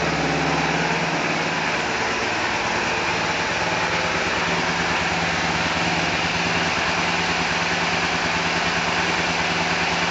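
A 250 motorcycle's engine idling steadily.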